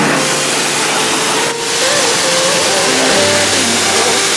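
Ryobi pressure washer blasting a water jet onto a car's engine bay and cowl, a dense steady hiss of spray, with background music running under it.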